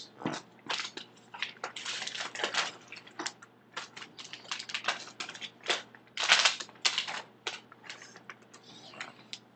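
Plastic bags of small kit parts being handled: irregular crinkling and light clicks, with a longer rustle a little past six seconds in.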